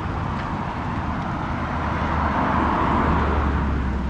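Road traffic on a highway, swelling to its loudest about three seconds in as a vehicle passes, over a steady low rumble.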